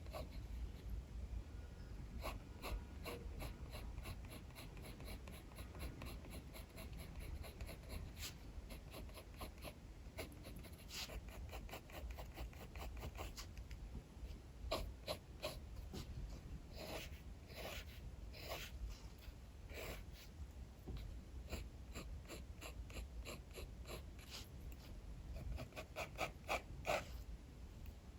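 Drawing strokes scratching on paper, short strokes in quick irregular runs that get busier about halfway through, over a low steady rumble of strong wind.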